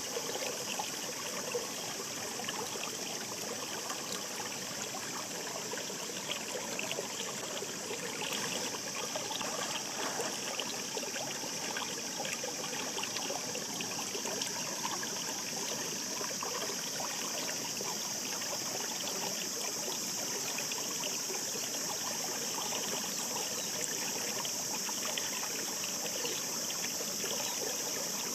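A shallow mountain stream babbling and trickling over rocks in a steady, unbroken flow.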